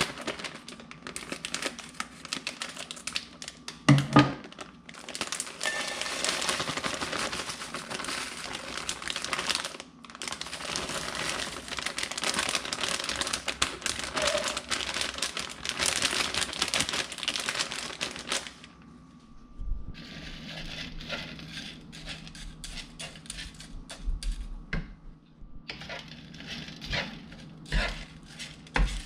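A plastic bag of frozen riced cauliflower crinkles as it is shaken out into a dry nonstick frying pan, the frozen bits scattering onto the pan, with a sharp knock about four seconds in. From about two-thirds of the way through, a wooden spatula scrapes and clicks against the pan as the cauliflower is stirred to defrost.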